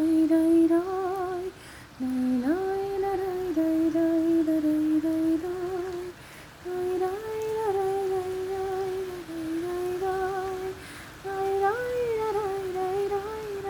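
A woman humming a slow, wordless melody in long held notes, with short pauses about two, six and eleven seconds in.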